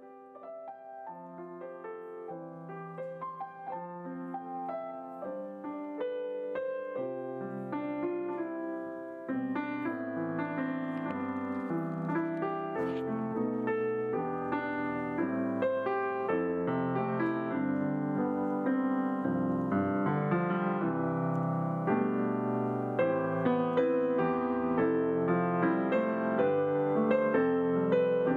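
Grand piano played solo, a flowing passage of many notes that starts soft and grows steadily louder, with lower notes filling in from about nine seconds in.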